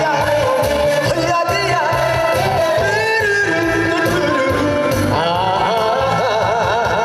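A male vocalist singing live over an amplified backing track with a steady bass beat. The held notes near the end waver in a wide vibrato.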